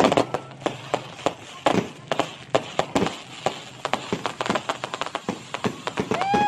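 Aerial fireworks display: a loud burst right at the start, then a rapid, irregular run of bangs and crackles, several a second.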